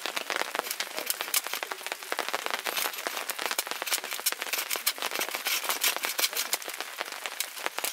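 Rain falling: many irregular, sharp drops pattering.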